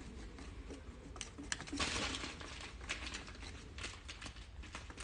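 Faint scuffling with light taps and rustles, a little louder about two seconds in: kittens moving and pouncing as they play-hunt.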